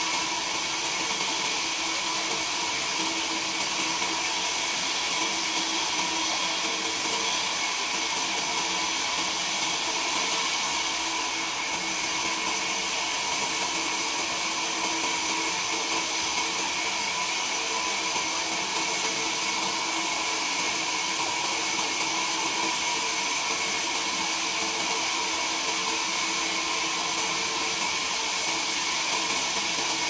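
A machine running steadily: an even whir and hiss with a few constant tones, never changing.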